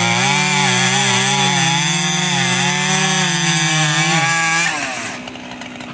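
Piped Husqvarna 3120XP two-stroke chainsaw cutting at full throttle through a large log. Its engine pitch sags and recovers as it bogs down under load, and about 4.7 seconds in the throttle is let off and the engine drops away to a much quieter sound.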